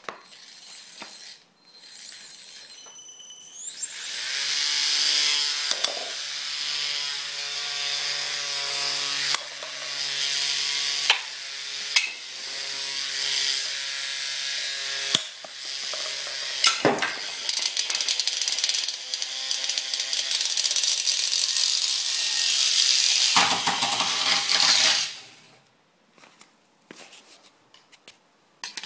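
Antweight combat robot's spinning weapon and motors running, a loud high whirring whine, with several sharp clacks as it hits and knocks over small targets. It spins up about four seconds in and cuts off suddenly near the end.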